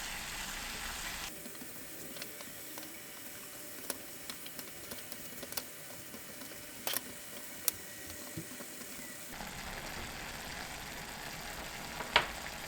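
Kitchen cooking sounds: a steady hiss with scattered sharp clicks of utensils, the loudest click near the end.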